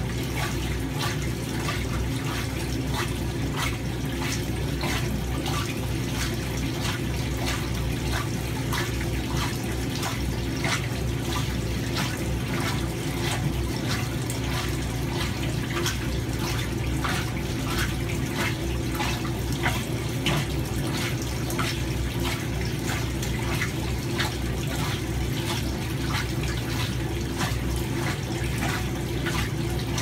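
1976 Hoover 620 top-loading washing machine filling: water pours and splashes into the tub with a steady hiss, over a steady low hum from the machine.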